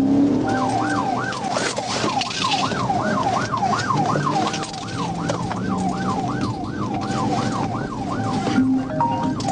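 Police car siren in a fast yelp, its pitch rising and falling about two and a half times a second, sounding through a pursuit.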